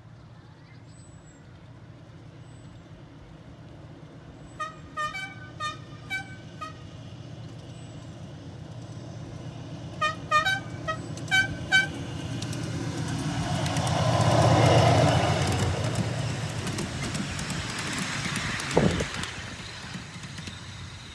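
Miniature railway locomotive sounding its horn in two runs of short toots as it approaches, then running past with its wheels on the rails, getting louder to a peak and fading away.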